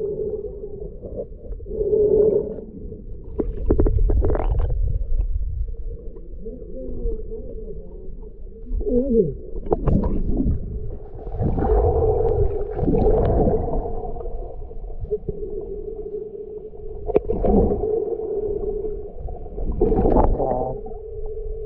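Muffled underwater sound from a submerged camera: a low rumble of moving water under a steady hum, broken by irregular louder surges of water noise from swimmers moving nearby.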